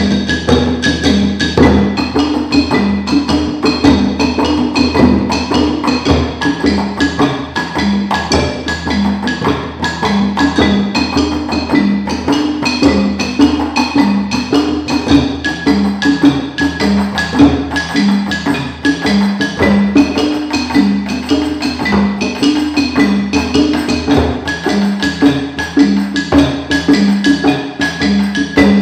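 Djembe hand drums and wooden-bar xylophones played together as an ensemble: quick, steady hand drumming under a short melodic figure on the xylophones that repeats over and over.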